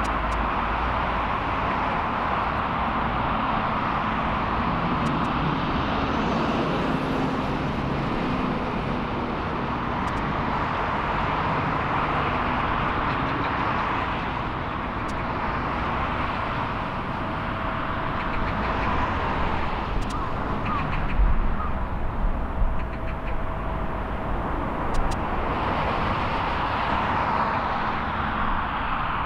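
Jet airliner engines running, a steady rushing noise from aircraft on the airport, with a faint steady tone partway through.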